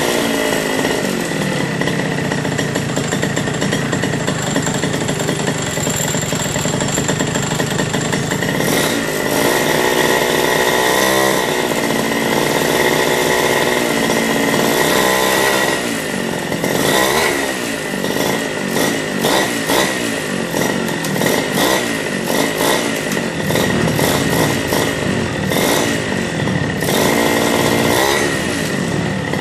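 Small bike motor running and being revved up and down over and over, with a steady high whine throughout.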